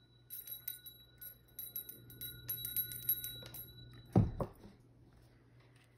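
A chime-like ringing: two high steady tones held for nearly four seconds, over small clicks and rustles of handling. A single thump comes just after the ringing stops.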